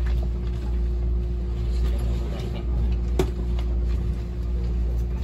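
Inside the cabin of a JR E657 series electric train running slowly into its terminal platform: a steady low rumble and hum, with one sharp clack about three seconds in.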